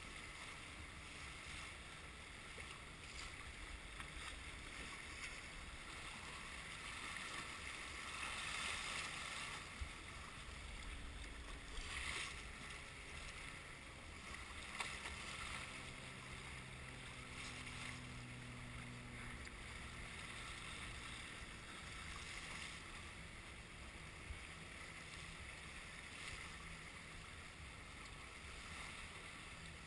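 Sailboat under way: water rushing along the hull and wind buffeting the microphone, in a steady wash that swells a little a couple of times.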